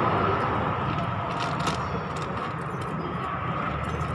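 Steady hum and hiss of a large station hall, with a few faint clicks and rustles of a bag and purse being handled close by.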